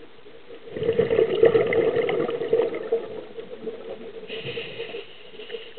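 Scuba diver's exhaled air bubbling out of the regulator underwater, a burst of gurgling bubbles lasting about two seconds, followed about four seconds in by a softer hiss, over a steady low hum.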